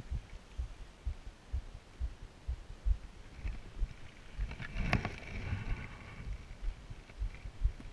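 Canoe being paddled through a reed-lined creek: dull low knocks, about two or three a second, over a faint hiss. About five seconds in there is a sharper clack and a short rustle.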